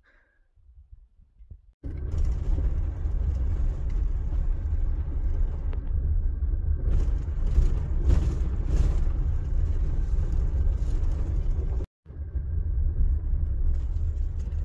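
Vehicle driving slowly over a rough dirt road: a loud, low rumble of tyres, suspension and engine that starts suddenly about two seconds in and breaks off for an instant near the end.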